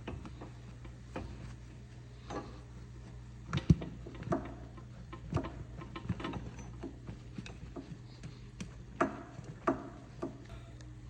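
Irregular clicks, clinks and knocks of hand tools on metal car suspension parts, a dozen or so scattered through, the sharpest just before four seconds in and near nine and ten seconds. A steady low hum runs underneath.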